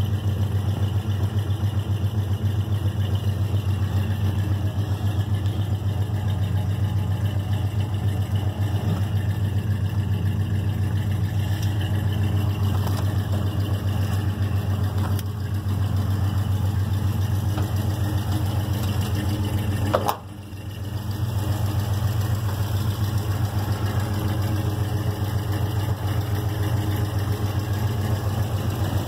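Carbureted 350 small-block V8 of a 1978 Chevrolet C10 idling steadily just after a cold start, its oil pressure running high. About twenty seconds in, a short sharp sound comes with a brief dip in the engine sound.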